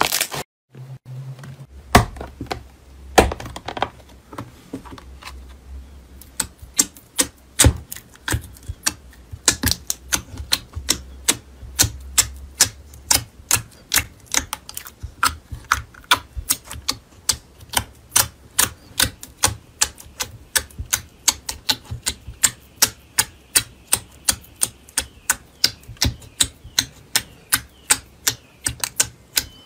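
Foamy blue slime packed in a clear plastic compartment box, poked and pressed by a fingertip, giving a long run of sharp clicking pops at about three a second.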